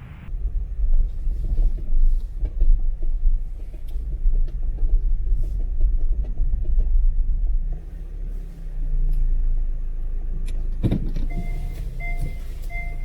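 Car cabin road noise, a steady low rumble from the moving car. Near the end comes a single knock, then an electronic beep repeating about twice a second, like a car's warning chime.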